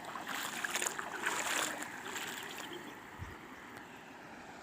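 Water splashing for about two and a half seconds, then a fainter steady wash of water.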